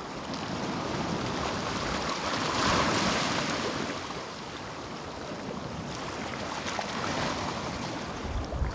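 Sea waves washing over rocks on the shore: a steady rush of surf that swells to its loudest about three seconds in, then eases off.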